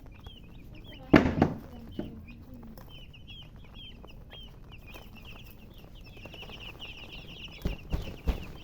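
Baby chicks peeping: many short, high chirps that grow dense and continuous in the last few seconds. There is a loud knock about a second in and a few smaller knocks near the end.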